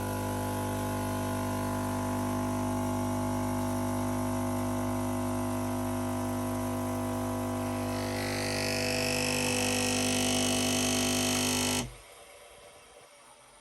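Bosch Tassimo pod coffee machine's pump buzzing steadily as it dispenses a drink, kept running by holding the button to fill a large cup. A hiss joins it near the end, and then it cuts off suddenly.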